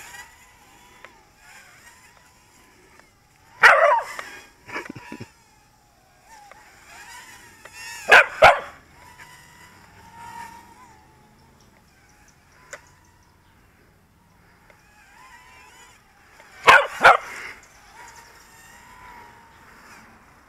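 Small dog barking at a toy quadcopter in short bursts: a loud bark about 4 seconds in with a couple of smaller ones just after, a double bark about 8 seconds in and another double bark near 17 seconds. Beneath the barks the small drone's motors whine steadily.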